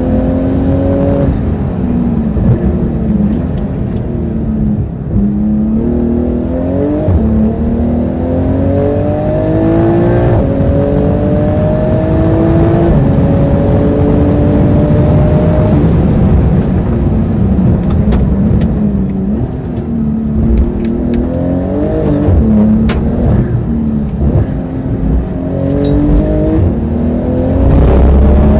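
Porsche 911 GT2 RS (991) twin-turbo flat-six engine heard from inside the cabin, driven hard on track. The engine note climbs in repeated rising sweeps through the gears and falls back in between, with a few sharp clicks about two-thirds of the way through.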